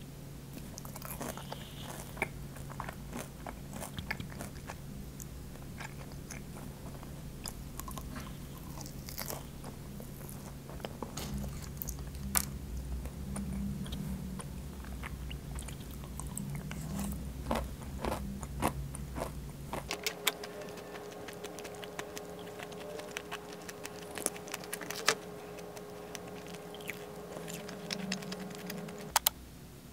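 Close eating sounds: biting and chewing crisp waffle-pressed rice cake (garaetteok) and crunchy granola in yogurt, with a wooden fork and spoon clicking against a glass dessert dish and ceramic plate. A steady low hum runs underneath and shifts to a higher tone about two-thirds of the way through.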